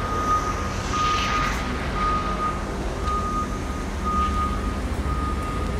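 A truck's reversing alarm beeping steadily, about one beep a second, over the low rumble of the engine as the truck backs up.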